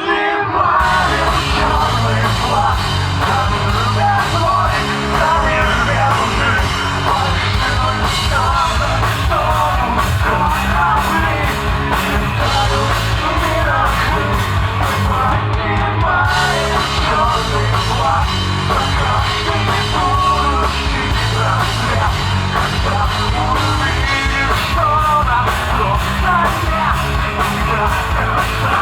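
Live rock band playing loud, with a vocal singing and shouting over drums and guitars.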